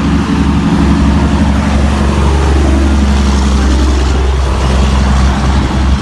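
Semi-truck hauling a dump trailer driving past: a steady deep engine drone with road and tyre noise. The engine's pitched note fades after about halfway as the truck moves away.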